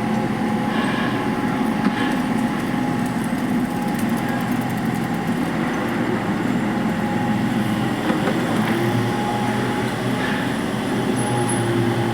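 Steady mechanical rumble with a few faint steady tones over it and occasional light clicks.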